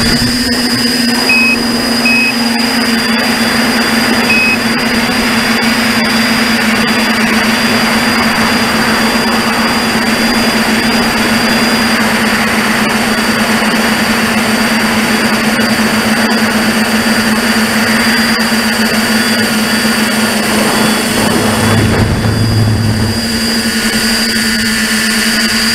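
Tricopter's electric motors and propellers whirring in flight, a steady hum over a rush of air noise, heard from the craft's onboard camera.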